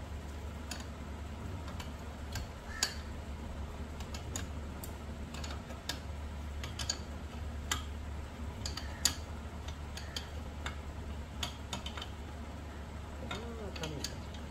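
Irregular metal clicks and clinks of a combination wrench working the centre bolt of an improvised gear puller on a Yamaha outboard gearcase, over a steady low hum.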